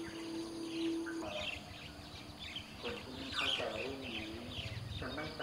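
Faint, indistinct voices in the background over steady high-pitched insect trilling, with scattered short chirps.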